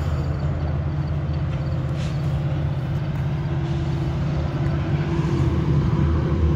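Approaching commuter train's locomotive engine: a steady low drone that grows slightly louder, with a higher steady tone joining about halfway through.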